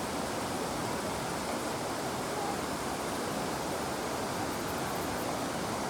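A river flowing, a steady rushing of water with no change in level.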